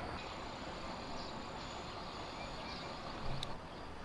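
Steady outdoor background hiss with faint insect chirping, broken by one short sharp click a little over three seconds in.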